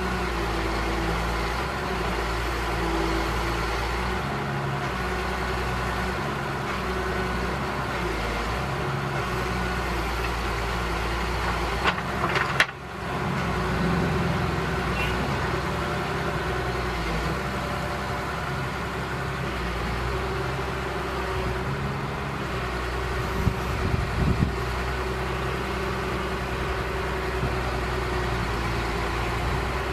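Heavy excavator's diesel engine running steadily at idle, with a few sharp clicks and knocks about twelve seconds in and again about twenty-four seconds in.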